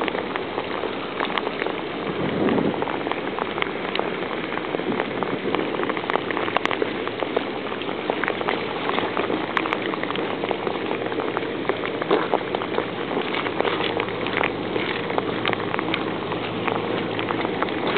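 Steady rain falling, with close raindrops tapping in many small, quick ticks.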